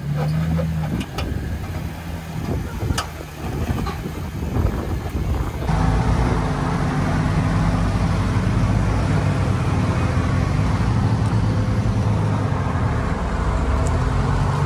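Jeep engines running at low speed while crawling over slickrock, with a few sharp clicks in the first part. About halfway through, the sound changes abruptly to a louder, steady engine close by.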